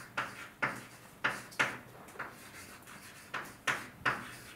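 Drawing strokes on a lecture board: about eight short, sharp scrapes at uneven intervals that stop near the end.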